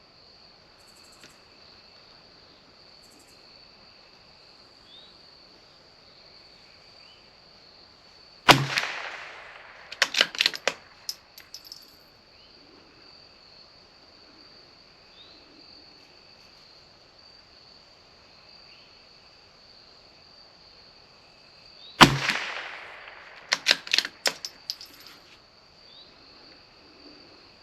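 CZ 457 .22 LR bolt-action rifle fired twice, about 13 seconds apart. Each sharp shot is followed a second or two later by a quick run of metallic clicks as the bolt is worked for the next round. Insects drone steadily at a high pitch throughout.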